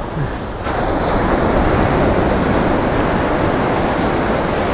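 Ocean surf breaking and washing up the beach: a steady rush of water that grows louder just under a second in as a wave comes in.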